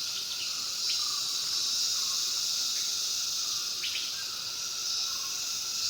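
Steady high-pitched drone of forest insects, with a few short bird chirps about one and four seconds in.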